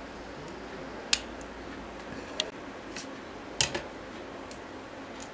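Small sharp clicks and snaps of plastic and metal parts as a disposable lighter is pried apart by hand, about six at uneven intervals, the loudest a double click a little past halfway.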